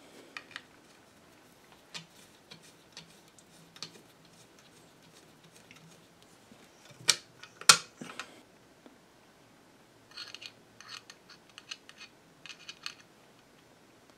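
Small metal hardware and a panel being handled and fitted on a workbench: light clicks and taps, two sharp knocks about seven seconds in, and quick runs of light clicking near the end.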